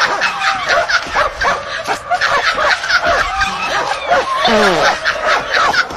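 Many short animal cries overlapping one another, each quickly rising and falling in pitch, with a few lower, longer falling calls about four and a half seconds in.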